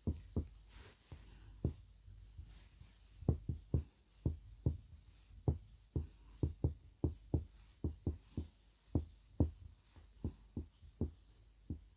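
Marker writing on a whiteboard: a quick run of short taps and strokes as letters are written, a few a second, with a pause about two seconds in.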